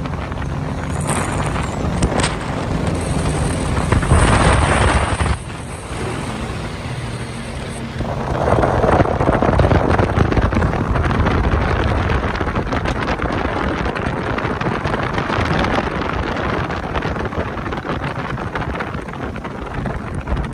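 An engine running under a heavy rush of wind noise. The rush swells briefly about four seconds in and again from about eight seconds.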